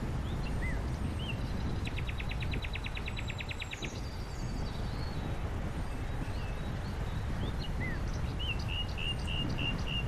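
Small songbirds chirping, with a fast trill about two seconds in and a quick run of about seven chirps near the end, over a steady low rumble.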